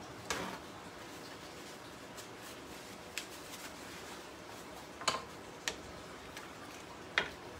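A handful of short, sharp clicks and knocks over a steady low hiss, the last few as a wooden spoon works in a glazed clay cazuela of simmering mole.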